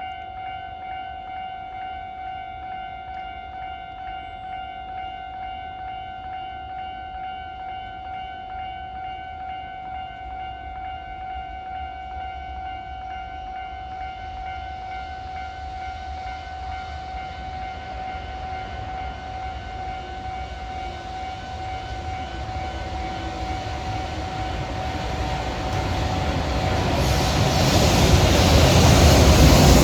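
Level-crossing warning bell ringing steadily as a container freight train hauled by an EH500 electric locomotive approaches. The train's rumble grows steadily louder through the second half, and its noise swamps the bell near the end.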